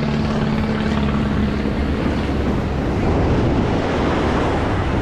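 An engine hum with a steady low pitch fades out over the first two seconds. After it comes a steady wash of ocean surf, mixed with wind buffeting the microphone.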